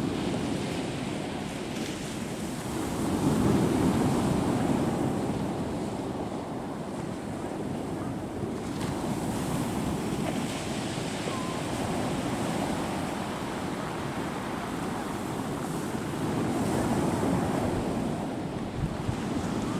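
Sea waves washing onto the shore in a continuous rush, swelling louder about three seconds in and again near the end, with wind buffeting the microphone.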